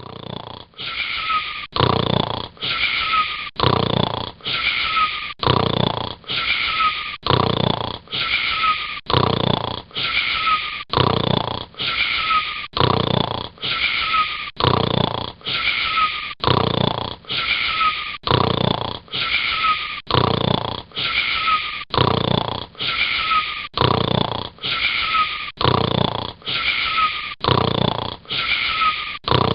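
Snoring: rapid, regular wheezy snores, close to two a second, each with a short whistle that falls in pitch.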